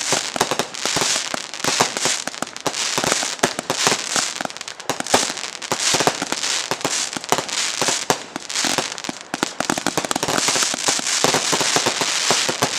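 Tokyo Rose consumer aerial finale set, four 48-shot cakes firing together: a dense, continuous barrage of rapid overlapping bangs with crackling breaks.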